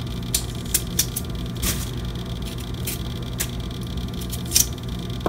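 A potato being peeled by hand: short scraping strokes of the blade across the skin at an irregular pace, over a steady low hum.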